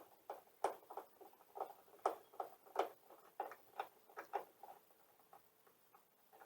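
Phillips head screwdriver working a tail-light screw, a series of light clicks about three a second that stops about five seconds in.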